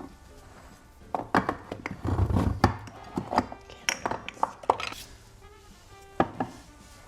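Jars and food packages being handled and set down on a pantry shelf or counter: a quick run of knocks and glassy clinks with one heavier thump, then a single knock later on.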